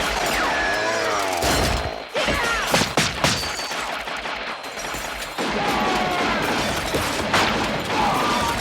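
Horror-film soundtrack action sequence: a noisy bed of effects with gliding, wavering tones, and a cluster of loud sharp bangs, like gunshots or crashes, about three seconds in.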